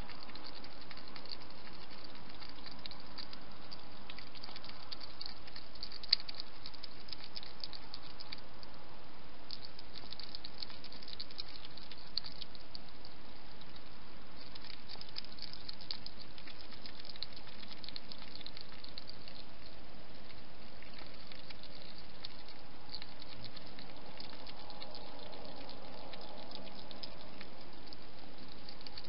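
Wild hedgehog feeding at a dish at close range: a stream of rapid small clicks and crackles from its mouth, pausing now and then, over a steady hiss, with one sharper click about six seconds in.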